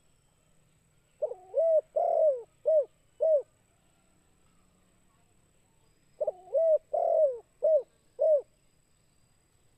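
Spotted dove (tekukur) cooing: two song phrases about five seconds apart, each a quick run of four or five low coos, in the song type that dove keepers call "kuk 2".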